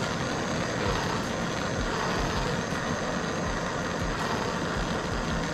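Handheld gas torch on a portable butane canister burning steadily with a continuous hiss.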